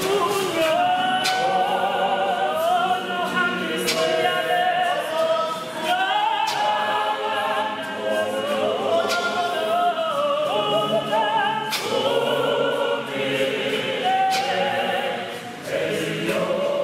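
Mixed choir of men and women singing together in a hymn-like chorus, with a sharp hit now and then.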